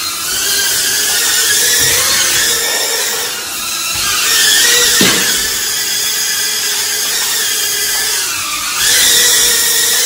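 Small remote-control toy drone's propeller motors whining in flight, the pitch rising and falling as the throttle changes, with a sharp drop in pitch about five seconds in.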